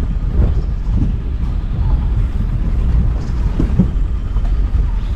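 Gypsy safari jeep driving over a rough forest track: a steady low rumble of engine and wind buffeting the microphone, with irregular knocks and jolts from the bumps.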